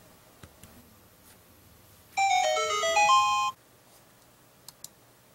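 A smartphone's text-message notification tone: a short electronic melody of stepping notes, a little over a second long, that marks the incoming test message. Two faint clicks follow near the end.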